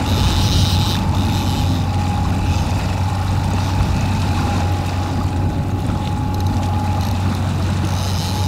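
Boat motor running steadily at trolling speed through choppy water: a constant low hum with a thin, steady high whine above it.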